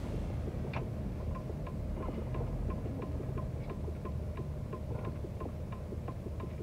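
Turn-signal indicator of a GMC Yukon ticking steadily, about three clicks a second, starting about a second in, over the low rumble of the engine and road inside the cabin.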